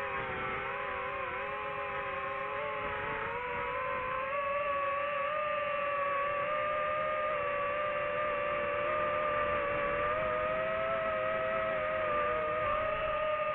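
DJI FPV drone's motors and propellers whining in flight, a steady hum whose pitch wavers with throttle, rising slightly and getting a little louder about four seconds in, then holding.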